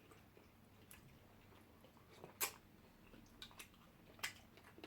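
Faint chewing and mouth clicks from eating by hand: a handful of short, scattered smacks and ticks, the loudest about two and a half seconds in.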